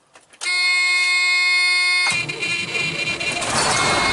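A big truck's diesel engine being started: a steady high whine during a short crank of under two seconds, then the engine catches and runs with a loud rumble. The start is a little slow, which the mechanic puts down to batteries still needing charge or a weak cable.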